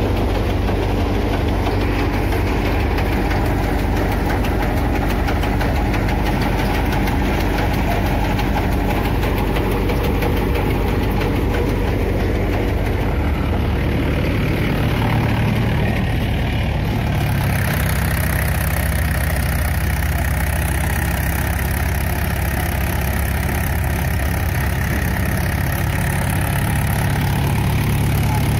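Red Mahindra tractor's diesel engine running steadily under load, driving a groundnut thresher. The machine noise stays even in loudness but changes in tone about two-thirds of the way through.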